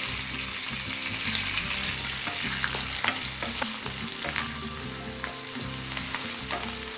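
Freshly added chopped onions sizzling in hot oil with a tempering of cumin, sesame seeds and chana dal, while a spatula stirs them, scraping and tapping against the pan in irregular clicks.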